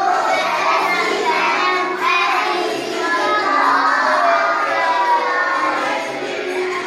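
A group of young children singing a song together in Arabic.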